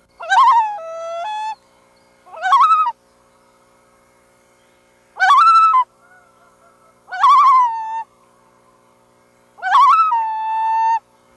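Loons calling: five separate calls, each opening with a quavering, wavering pitch; the first and last two step down or settle onto a held, steady note lasting about a second.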